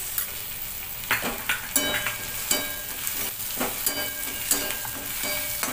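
Chopped onions with green chilli thecha sizzling in oil in a metal pan. From about a second in, a metal slotted spatula scrapes and clinks against the pan about twice a second, and the pan rings briefly after each stroke.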